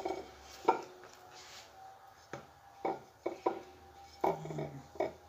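About half a dozen irregular, sharp plastic clacks and light knocks from a sugar dispenser being shaken and tipped over a ceramic plate to sprinkle sugar onto banana for turon.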